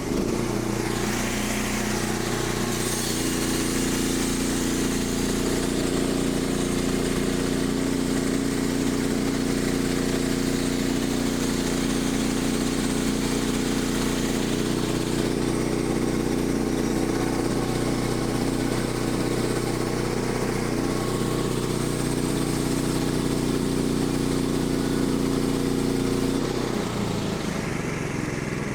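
Portable band sawmill's gas engine running steadily at speed while the band blade cuts lengthwise through a red oak log, the blade still cutting sharp. Near the end the engine note drops as the cut winds down.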